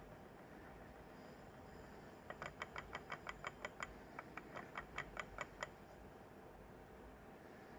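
Ferrite rod knocking inside a pulse motor's LED coil as the coil pulses: a run of sharp clicks, about six a second, starting a couple of seconds in with a brief pause midway and stopping about three seconds later.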